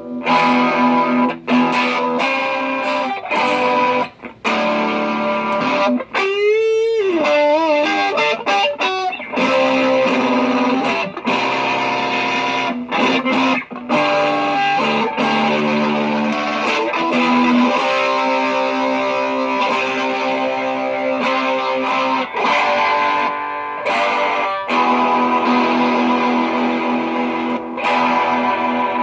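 Electric guitar played through a pedalboard of effects: chords and single notes ring on, and about six seconds in a note is bent up with a wide, wavering vibrato.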